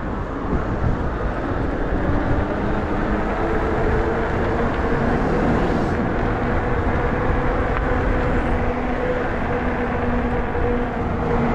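Nakto F6 electric fat bike riding along a paved road: wind buffets the microphone throughout. A steady hum from the bike sets in about three seconds in as it comes up to speed.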